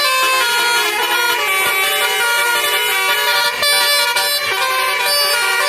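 Indonesian bus "telolet" musical air horn playing a tune: several horn tones sound together and step from note to note without a pause, loud throughout.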